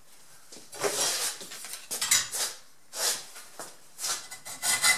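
Hacksaw blade scraping and clinking irregularly against a steel exhaust pipe as the cut is started, then settling near the end into quick, regular back-and-forth sawing strokes through the pipe.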